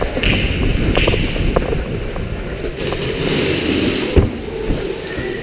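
A player running on a concrete floor, footsteps and gear rattling and scraping, with one sharp thud about four seconds in.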